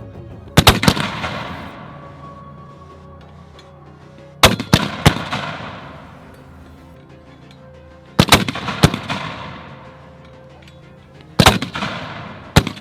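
M2A1 .50-caliber heavy machine gun firing four short bursts of a few rounds each, spaced about four seconds apart, each burst trailing off in a long echo. Background music plays faintly underneath.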